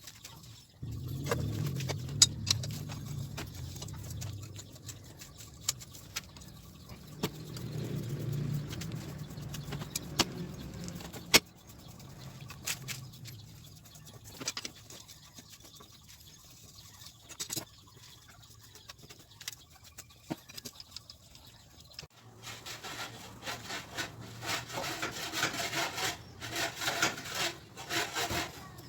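Metal tools and engine parts clicking and rattling as they are handled, with a low hum twice in the first half and a denser spell of rattling near the end.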